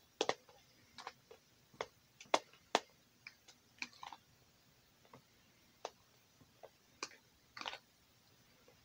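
A fork clicking and tapping irregularly against a mixing bowl while mashing a plantain, with a couple of short scrapes.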